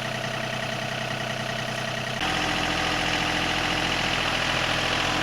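A vehicle engine idling steadily. About two seconds in, the sound steps up abruptly, louder and with a changed tone.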